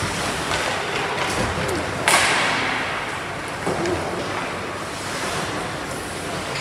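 Ice hockey rink ambience: skates scraping the ice, sticks clacking and faint voices in the hall, with one sharp bang from the play about two seconds in that rings on briefly.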